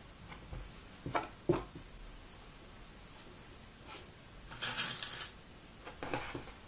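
Sewing pins handled and pushed through knit fabric: a few soft clicks and rustles, with a short, louder rattle about five seconds in.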